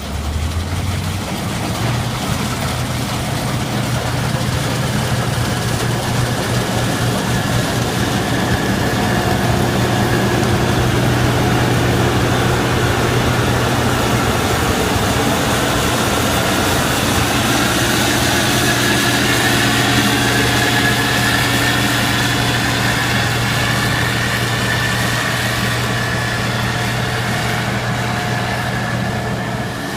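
Combine harvester running steadily through a soybean harvest: an even engine hum with a high whine over it.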